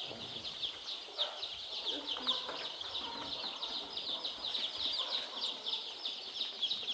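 Flock of young chicks peeping: many short, high, falling chirps overlapping in a dense chorus.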